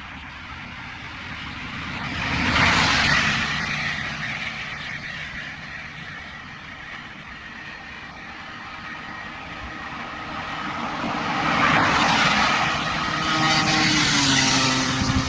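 Yamaha TDR 125's two-stroke single-cylinder engine running steadily at speed, with a rushing noise that swells loud twice, around three seconds in and again over the last few seconds. Near the end the engine note steps up slightly in pitch.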